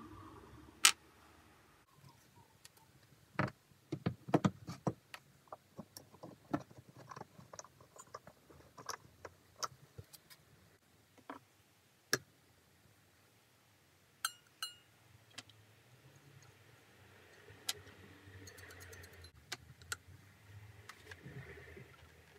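Sharp metallic clicks and light taps of a jeweller's piercing saw being handled at a bench pin, as the blade is set in the frame and threaded through a silver shilling. The taps come in a dense cluster during the first half, then thin out, with faint rubbing near the end.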